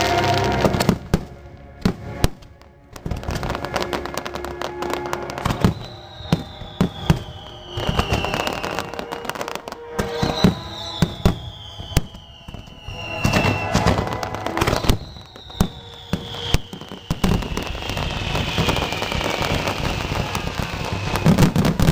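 Fireworks finale: rapid bursts and crackling of many aerial shells over the show's music playing on loudspeakers, with three long falling high tones along the way.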